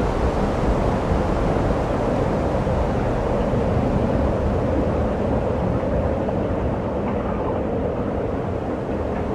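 Steady wind noise on the microphone: a continuous low, uneven rushing rumble with no sudden events.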